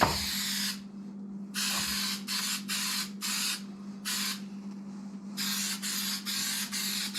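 Aerosol can of spray adhesive hissing in a string of short sprays, each under a second, coming in quicker succession over the last two seconds. A steady low hum runs underneath.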